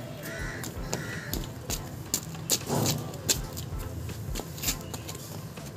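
Cats eating from a plastic tray: a run of small sharp clicks and smacks of chewing and licking, over a steady low hum. A few short calls sound in the first second and a half.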